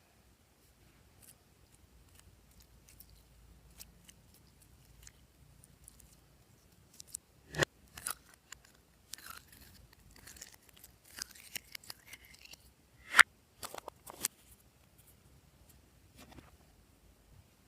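Glossy slime being handled and mixed with add-ins: scattered sharp clicks and crackles, with two loud snaps about seven and thirteen seconds in and a stretch of denser crackling between them.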